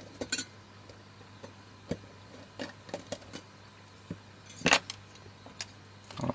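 Scattered small metallic clicks and taps as an LCD panel and its metal mounting frame are handled, about half a dozen in all, the loudest a little after the middle.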